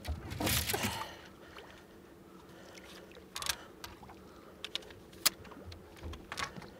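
Handling noise on a fishing boat as a landing net is brought out: a brief rustling rush about half a second in, then a few sharp knocks, over a faint steady hum.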